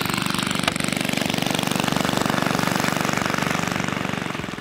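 Small Briggs & Stratton engine on a motorized tricycle running steadily with a rapid pulsing beat, fading out near the end. A single sharp click sounds about a second in.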